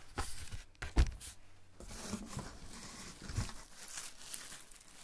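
Plastic wrapping on bolts of fabric crinkling and rustling as they are picked up and handled, with a sharp knock about a second in from the camera or bolts being bumped.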